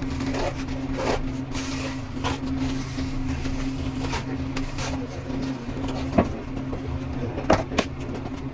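A steady machine hum under irregular scraping and knocking, with a few louder, sharper knocks in the second half.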